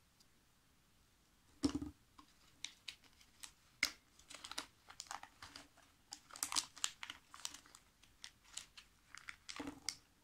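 Tissue paper crinkling and small plastic toy pieces tapping as a blind-box toy is unwrapped by hand: a scatter of short, fairly quiet rustles and taps starting about a second and a half in.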